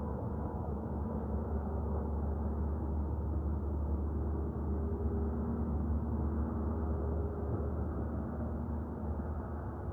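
Casting plant machinery heard from a distance, a steady muffled low engine roar with faint tones drifting in and out over it. The recorder blames the roar and its harmonics on failing equipment.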